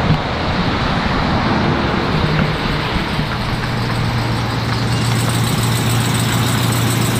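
Ram heavy-duty dump truck being driven up and pulling in close, its engine running with a steady low hum that sets in about three seconds in, over a constant rushing noise.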